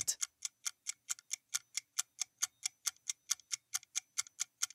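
Ticking-clock countdown timer sound effect: steady, even ticks at about four to five a second.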